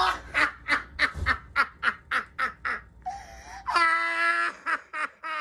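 A man laughing in quick, evenly spaced bursts, about four a second, breaking into a long drawn-out vocal cry about four seconds in, then a few more laughs.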